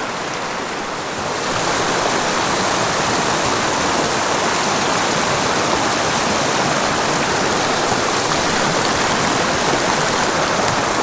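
Small rocky mountain creek rushing over boulders in fast riffles, a steady rush of water that grows louder about a second and a half in.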